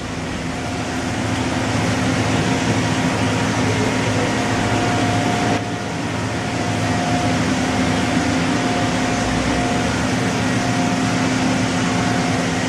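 Samsung SL45 CNC turning center running under power: a steady machine hum with a thin, steady whine that sets in about half a second in. The level dips briefly near the middle.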